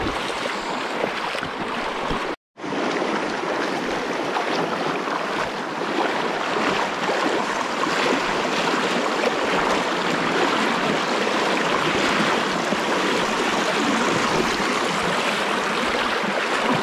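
Shallow river water rushing steadily over stones and gravel, close to the microphone, a continuous splashing rush that drops out for a moment about two seconds in.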